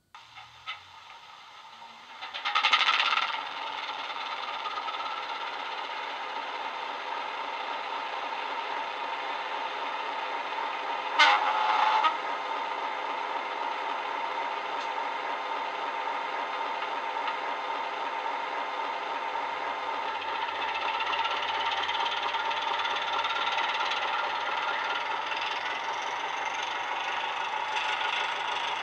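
Sound decoder in a Dapol model Class 73 locomotive playing the Legomanbiffo Class 73 sound file through a small double speaker: a continuous running sound with two short loud sounds, one about three seconds in and one about eleven seconds in. From about twenty seconds in a deeper note joins and the pitch rises as the locomotive powers up to move off.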